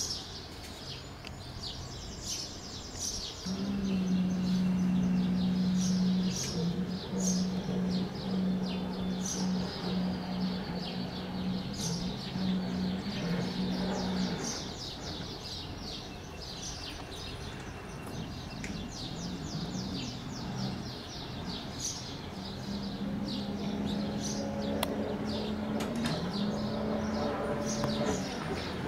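Small birds chirping throughout, over the steady hum of a distant jet ski engine running at speed. The hum runs from a few seconds in to about halfway, stops, and comes back near the end, stepping up slightly in pitch just before it fades.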